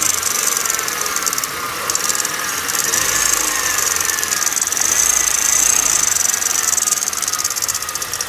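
2009 Kia Cerato engine running with a rapid, steady knocking tick: the engine knock that the owner is showing. A faint whine wavers up and down behind it.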